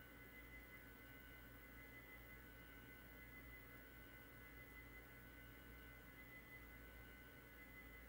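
Near silence: a faint steady electrical hum with a thin, steady high-pitched whine, no other events.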